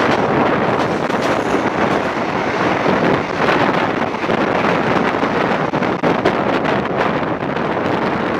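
Running noise of a moving passenger train heard from an open window, with wind rushing on the microphone and wheels clicking on the rails. About halfway through, a train passes close on the adjacent track.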